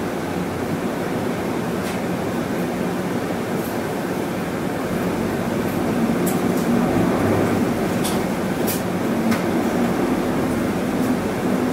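Inside a Hino Rainbow II medium-size diesel bus on the move: steady engine hum and road noise, growing louder about six seconds in as the engine works harder, with a few light clicks and rattles.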